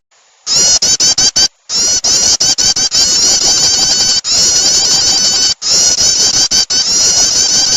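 Recorded prinia (prenjak) calls played as a bird lure: a loud, fast, continuous chatter of high, rapidly repeated notes. It starts after a half-second pause and is broken by a few very short gaps.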